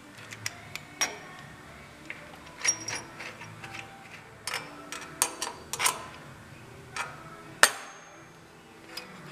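Irregular sharp metallic clicks and knocks of a replacement carburetor and its linkage being handled and fitted onto a small lawn tractor engine. One louder knock comes about three-quarters of the way through.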